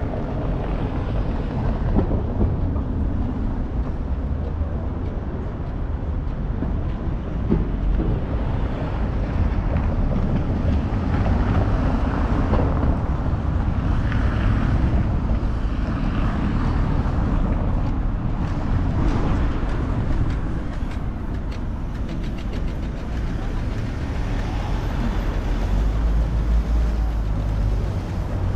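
City street traffic: a steady low rumble of passing vehicles that swells and fades as they go by.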